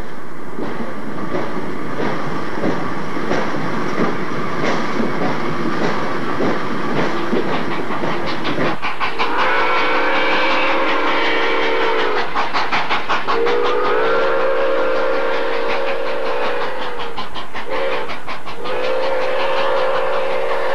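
K1 Pacific-type steam locomotive working a commuter train away from a station, its exhaust beating in a fast even rhythm. About halfway through, its chime whistle sounds long, long, short, long: the grade-crossing signal.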